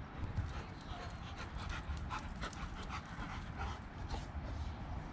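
Rottweiler panting close by.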